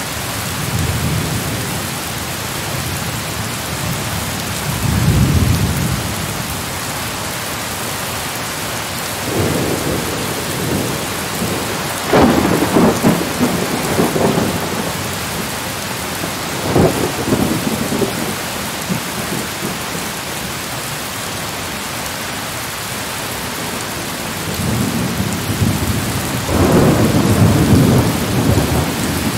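Thunderstorm: heavy rain hissing steadily while thunder rolls and rumbles again and again. There are sharper crackling peals about twelve and seventeen seconds in, and a long loud roll near the end.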